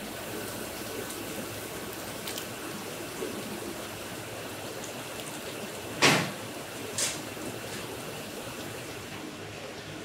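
A steady rushing background noise, with a dull thud about six seconds in and a smaller one a second later as a metal scoop presses into fresh tofu curds in a cloth-lined wooden mold.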